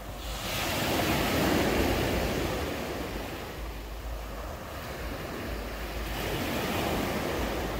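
Sea waves breaking and washing up a beach, surging twice, with wind buffeting the microphone.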